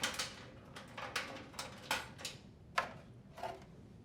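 Dryer wires being fed through the plastic control panel: a handful of light clicks, knocks and rustles of wire and panel being handled, fading off near the end.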